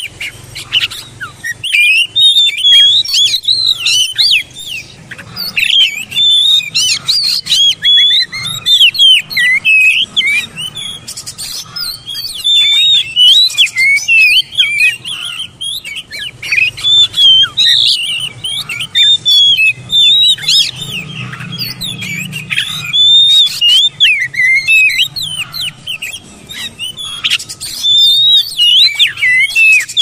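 An Oriental magpie-robin (kacer) singing a loud, varied song of rapid whistled notes that jump up and down in pitch, in phrases of a second or two with short breaks between them.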